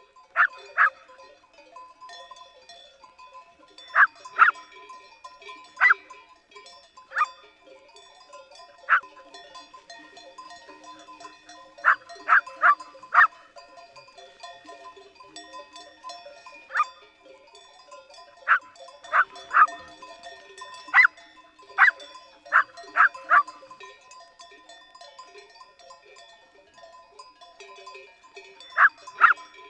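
Farm animal calls: short, sharp calls coming singly and in quick clusters of two to four, over a steady tinkling of bells.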